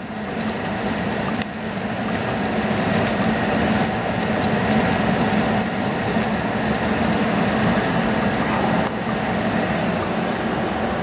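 Diced bacon sizzling in a frying pan on a gas burner, stirred with a wooden spoon, over a steady low hum. A single knock about a second and a half in.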